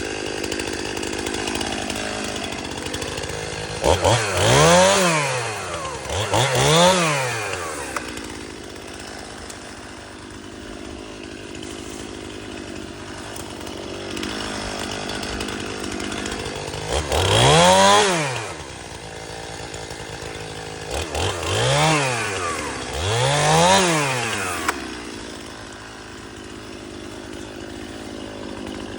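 STIHL MS-291 two-stroke gas chainsaw idling, then revving up to full throttle and back down to idle five times: twice close together near the start, once in the middle and twice more near the end.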